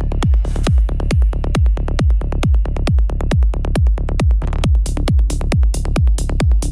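Instrumental electronic trance music with a steady four-on-the-floor kick drum, about two beats a second, and hi-hats ticking between the kicks.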